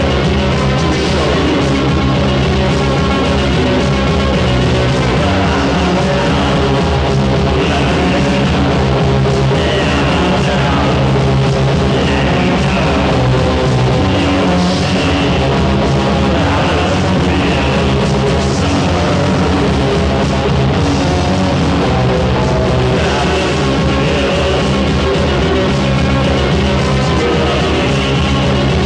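Loud rock music, dense and unbroken, played from a band's album recording.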